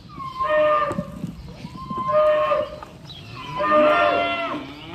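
Cattle mooing: three drawn-out calls about a second and a half apart, each rising at the start, the third longest and loudest.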